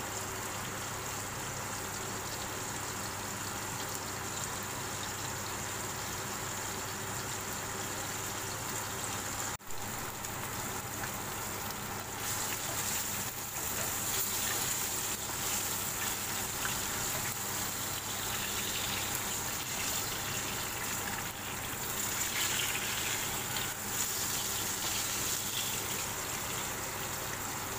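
Salmon fillets sizzling as they pan-fry in butter and oil in a nonstick wok: a steady hiss that cuts out for an instant about ten seconds in and grows a little louder a couple of seconds later.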